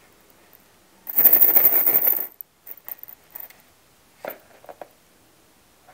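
Small hard foam beads rattling against a glass bowl in a dense crackle for just over a second, stopping abruptly, followed by a few light clicks and taps.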